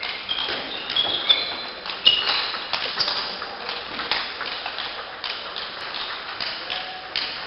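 Table tennis rally: the ball clicking off the rackets and the table in a quick run of sharp taps, loudest in the first three seconds. A few brief high squeaks sound among the taps in the first three seconds.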